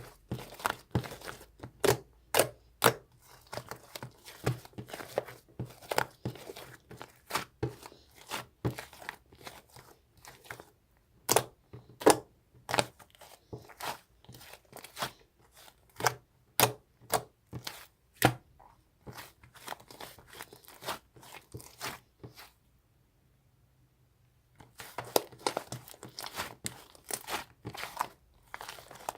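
Handling noise: irregular sharp taps and clicks with crinkling and rustling between them, stopping for about two seconds roughly three-quarters of the way through, then starting again.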